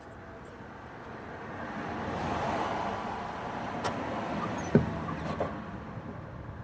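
Car noise that swells and fades over a few seconds, with a sharp click and then a knock a little after the middle.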